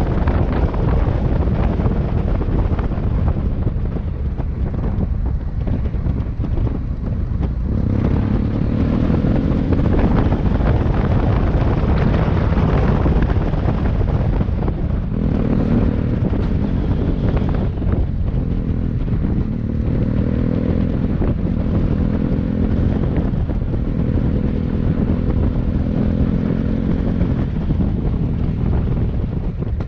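Motorcycle engine running while riding, its note rising and falling with the throttle, over steady wind rush on the microphone.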